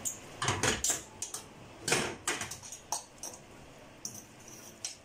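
Metal fork clinking and scraping against a stainless steel frying pan while spaghetti is tossed in it: a quick run of sharp clicks and knocks, thickest in the first couple of seconds, then fewer and fainter.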